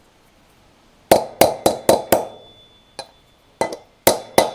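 Hammer tapping on a socket used as a drift, driving a new front wheel bearing into a quad bike's hub by its outer race. A run of five sharp metallic taps about four a second after a second of quiet, then a few more taps near the end, the last ones leaving a faint ring.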